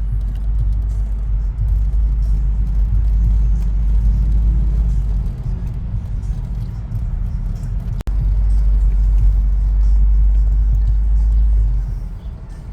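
Car cabin noise while driving: a steady low rumble of engine and road, with a sharp click and a momentary dropout about eight seconds in.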